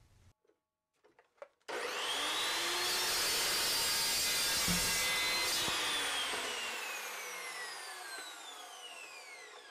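Evolution 15-inch carbide-tipped metal-cutting chop saw starting up with a rising whine and cutting through steel square tubing, with one knock midway. It is then switched off, and its blade whine falls steadily as it spins down.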